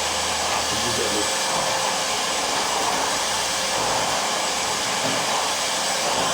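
Bosch vacuum cleaner running at its carpet suction setting: a loud, steady motor whine with rushing air.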